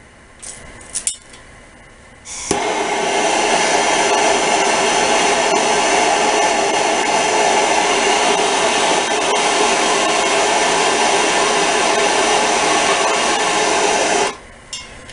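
A few clicks, then a handheld gas torch on a yellow fuel cylinder burning with a loud, steady hiss from about two seconds in. The hiss cuts off about a second before the end.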